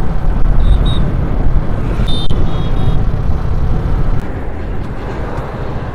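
Wind buffeting a helmet-mounted microphone on a motorcycle ridden at about 40 km/h, a loud, steady low rumble that drowns out other road sounds. Short high beeps sound twice, and the wind noise drops a little about four seconds in, as the helmet visor is lowered.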